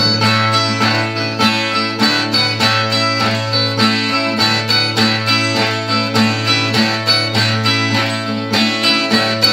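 Brazilian viola, a ten-string folk guitar, playing an instrumental passage alone: quick plucked notes, a few each second, over a steady low note.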